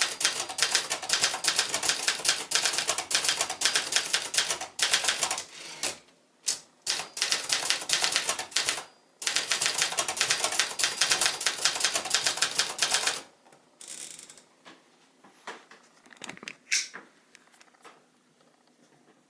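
Brother Activator 800T ultraportable manual typewriter being typed on at speed, a rapid clatter of type bars striking the platen with a couple of brief pauses. The typing stops about two-thirds of the way through, leaving only a few faint clicks and handling noises.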